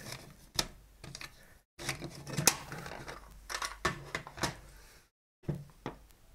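Irregular sharp clicks and light knocks of small hand tools and a plastic case being handled on a tabletop, as a precision screwdriver is taken from its case.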